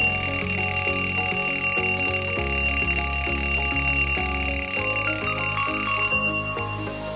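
Alarm ringtone playing a melody of short stepping notes, with a steady high tone over it that cuts off about six seconds in.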